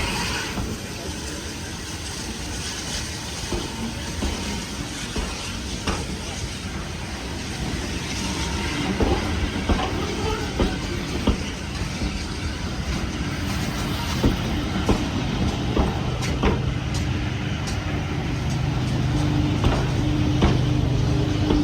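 A heritage-railway train running on the rails: a steady rumble with sharp clicks from the wheels. About two-thirds of the way through, a steady low hum and a higher tone come in and grow louder toward the end.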